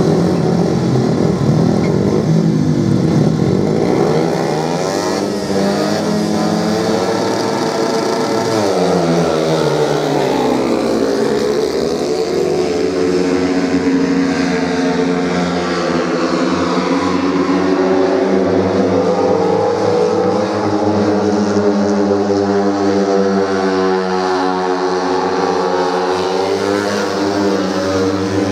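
Several 250 cc speedway motorcycles racing on a dirt oval, their engines running loud and hard, with the pitch falling and rising again as they slow into the turns and accelerate out.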